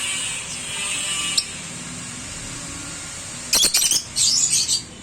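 Lovebirds calling, with a thin high chatter early on and a few sharp, harsh squawks near the end.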